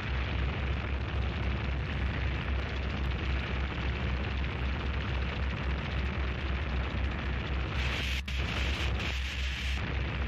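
Harsh noise music: a dense wall of distorted static over a rapidly pulsing low rumble. About eight seconds in, a brighter, harsher hiss cuts in for a couple of seconds, then falls back.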